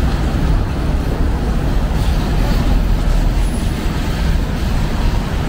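Steady city traffic noise at a busy intersection: a continuous low rumble of vehicles with no single event standing out.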